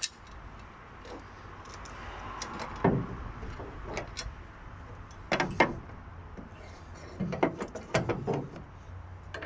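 Metal clinks and knocks as a steel bonnet hinge bracket is handled against the van's front panel and its bolts are put in by hand. There are several separate knocks, the loudest about halfway through and a cluster near the end.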